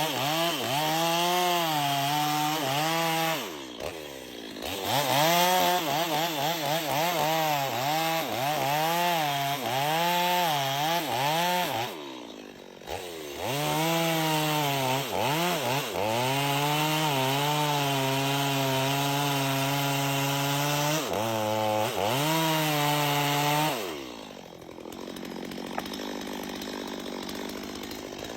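Chainsaw cutting into a tree, its engine running at high revs with the pitch wavering up and down under load. It eases off briefly twice and drops to a lower, quieter idle for a few seconds near the end.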